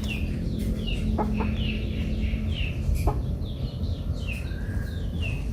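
Chickens peeping: a steady run of short, high, falling calls about two a second, with a few sharp light clicks about a second in and again about three seconds in.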